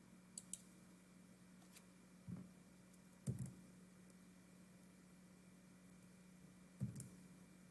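Near silence: room tone with a faint steady hum, broken by a few small clicks and three soft low thumps spread through the pause.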